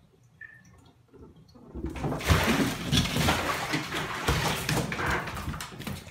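A kitten splashing and scrambling in shallow bathwater in a tub. It starts suddenly about two seconds in and goes on for about four seconds.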